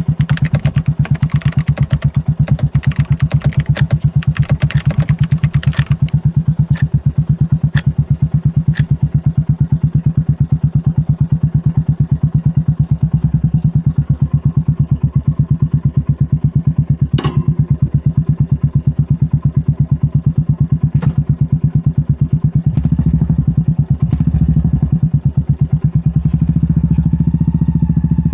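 Royal Enfield Meteor 350's single-cylinder engine, through an aftermarket sport exhaust, idling with even exhaust pulses just after being started. A run of clicks and clatter sounds over the first six seconds, and a few single clicks come later.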